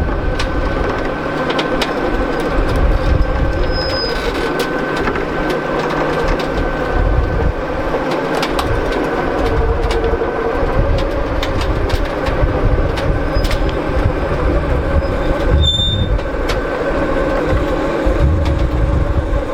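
A heavy vehicle's engine running steadily, with a constant whine and scattered clicks and rattles.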